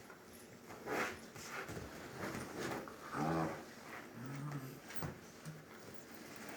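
Small dog making short low growling grumbles, a few seconds apart, with rough noisy breaths between them.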